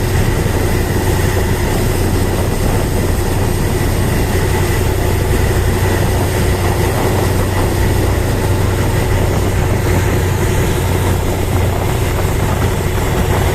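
Motor ship's diesel engine running steadily, a constant low drone with a steady hiss over it.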